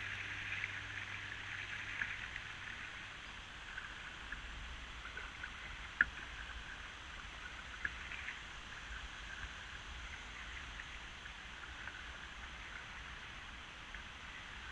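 River water trickling and lapping against a floating kayak, with small drips and splashes. There is one sharp tap about six seconds in.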